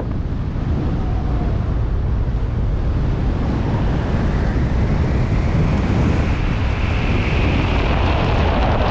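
Loud, steady rush of wind buffeting a skydiver's camera microphone during the jump, turning hissier about halfway through.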